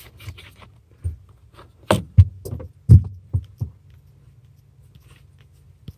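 Sharp clicks and knocks from a Honda Civic's accelerator pedal assembly as its retaining clip is pushed in and the pedal is pulled and worked loose from its floor mount by hand. The loudest knocks come about two and three seconds in, over a faint low hum.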